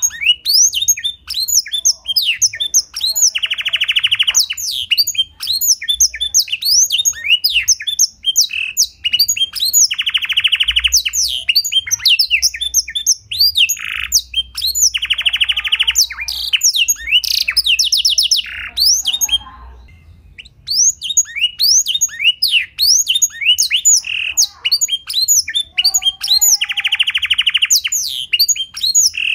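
Domestic canary singing a long, fast song of sweeping chirps broken every few seconds by buzzy rattling trills, its song filled with black-throated canary (blackthroat) phrases. The song dips briefly about twenty seconds in.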